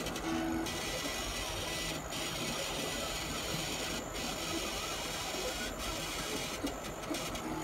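40 W CO2 laser cutter's gantry and stepper motors driving the laser head in short moves along a vector outline, with a steady hiss under the motor noise.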